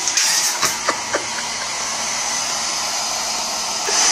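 Small handheld hair dryer blowing, a steady rushing whoosh, with a few light clicks about a second in. It gets noticeably louder near the end.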